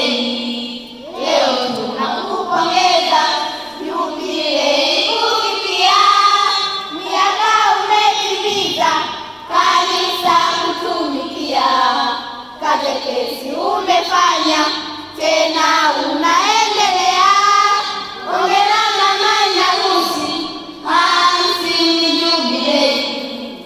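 A group of children singing a poem together, phrase after phrase, with short pauses for breath between lines.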